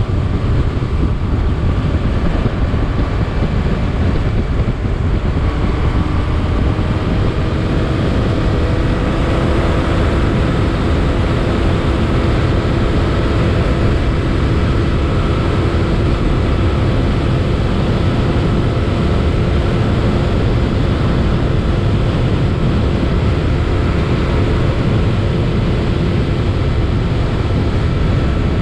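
Motorcycle under way at road speed: heavy wind rush and road rumble on the microphone. A faint engine hum rises slightly in pitch over the first several seconds, then holds steady.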